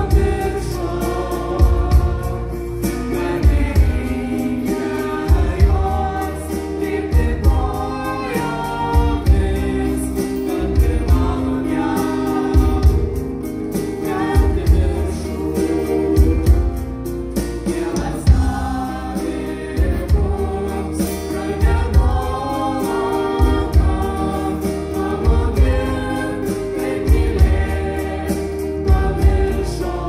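A live rock band plays, with several voices singing the melody together over electric guitars, bass and a steady drum beat.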